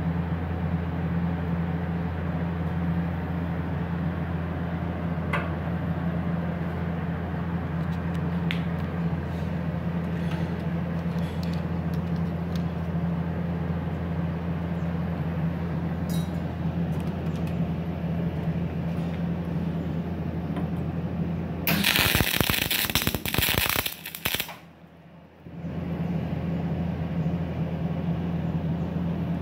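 WIM MIG WELD 350 SEF CO2 MIG welding machine humming steadily while switched on and ready. About 22 seconds in, a loud MIG arc crackles for roughly two seconds as a short weld is struck, and then the hum returns.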